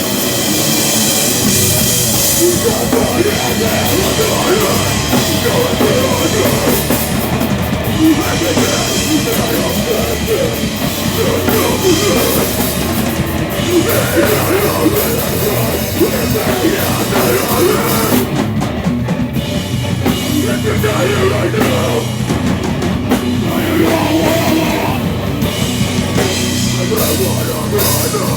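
A live heavy rock band playing loud, with distorted guitars and a full drum kit, heard as a live recording.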